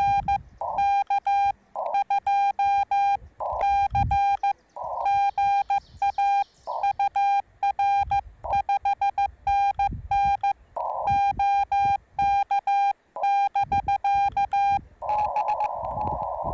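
Morse code keyed on the Yaesu FT-891 and heard as its clean, steady sidetone, a single high tone in quick dots and dashes. Short hisses of band noise through the narrow CW filter fill the longer pauses. Near the end the keying stops and the receiver's band hiss carries on steadily.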